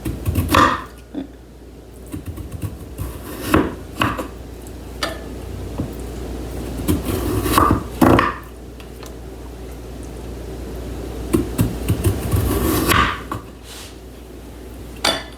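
A sweet potato being sliced thin on a cutting board: irregular knocks and scraping blade strokes, a few of them sharper and louder.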